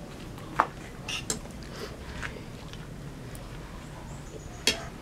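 Spoon and fork clinking and scraping on a plate: a sharp clink about half a second in and another near the end, with softer taps between.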